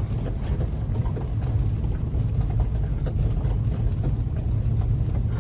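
Steady low rumble of a four-wheel-drive vehicle's engine and tyres while driving, heard from inside the cab.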